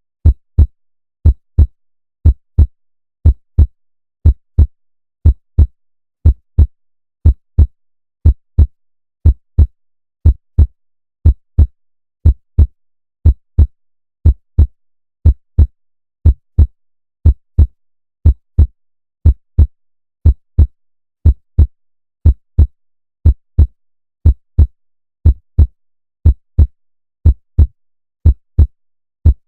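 Human heartbeat sound effect: a steady lub-dub of paired low thumps about once a second (60 beats per minute), the normal first and second heart sounds.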